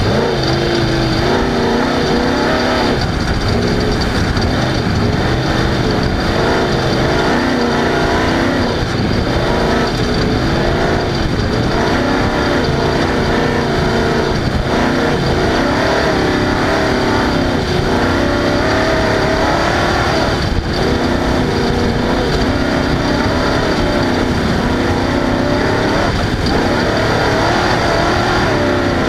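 Off-road race vehicle's engine running hard, its pitch rising and falling constantly with the throttle over a dense rumble of rough running.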